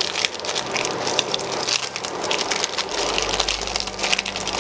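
Foil-lined wrapper of a wedge of blue cheese crinkling and crackling as it is torn open by hand, a dense run of small crackles.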